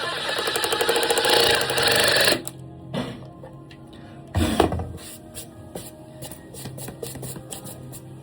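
Power driver running hard with a fast rattling rhythm for about two seconds, sinking a Tapcon concrete screw to anchor a toilet flange. It stops, followed by a few clicks and a single knock.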